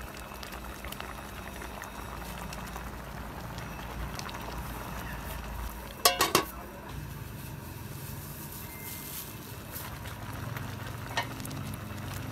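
Soup boiling hard in a metal pot, a steady bubbling. About six seconds in there is a quick cluster of metal clinks as the pot lid is handled, and a single click near the end.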